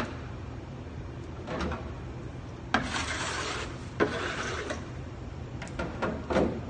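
Rough scraping and rubbing strokes at the mouth of a bagel oven as the baker works its deck. Two of them open with a sharp knock, the longest lasting about a second, over a steady low hum.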